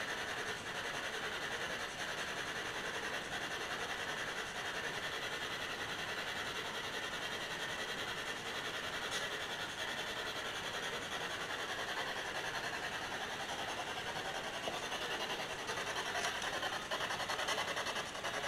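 Steady hiss of background noise at an even level, with no distinct events.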